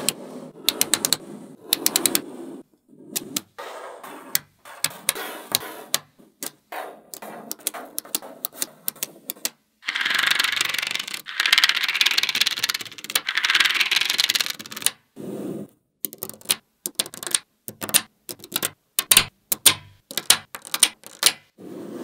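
Small magnetic balls clicking and snapping together as they are set into rows and blocks by hand, in quick irregular ticks. In the middle, for about five seconds, a dense rattling scrape as a plastic card is pushed across the bed of balls.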